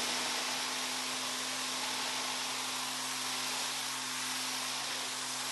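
Ryobi 1500 PSI battery-powered pressure washer spraying concrete through its 15-degree nozzle in regular, non-boost mode: a steady hiss of the water jet over an even hum from the pump motor.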